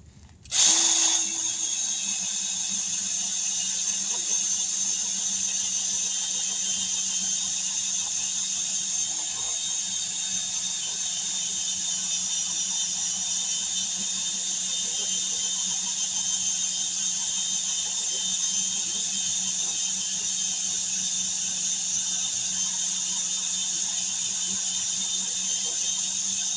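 Power buffing tool running steadily against the tire's inner liner, roughing the rubber around the puncture to prepare it for a patch; a steady high hiss over a low hum that starts about half a second in and stops right at the end.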